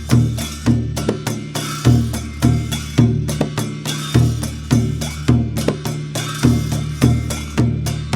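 Dhime, the Newar double-headed barrel drum, playing a steady rhythmic pattern: a deep stroke about every 0.6 seconds with lighter strokes in between, and cymbals ringing over the beat.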